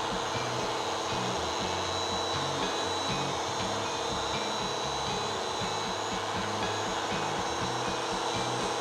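Background music with shifting bass notes over a steady whirring motor noise, like a small handheld power tool running.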